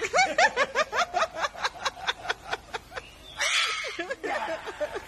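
A fast run of high, cackling laughter, about six short rising notes a second. It breaks off about three seconds in for a short rush of hiss, then a few more cackles follow near the end.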